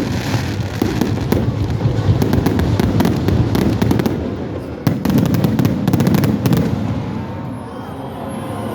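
Fireworks display going off in rapid, dense volleys of bangs and crackles. There is a brief lull about five seconds in, then another volley that thins out near the end.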